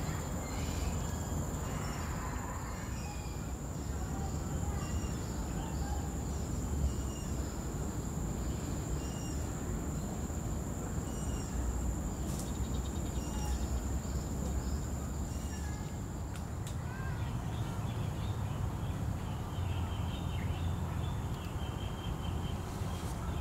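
Garden ambience: birds giving short chirps every second or two, with a quick run of chirps near the end, over a steady low rumble and a thin, steady high whine.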